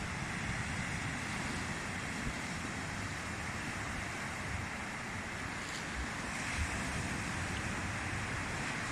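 Small waves of the calm Black Sea washing steadily onto a sandy beach, with wind buffeting the microphone.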